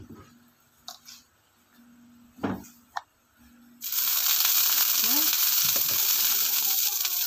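Water poured into a hot, empty non-stick frying pan, bursting into a loud steady sizzle about four seconds in. Before that only a few faint clicks.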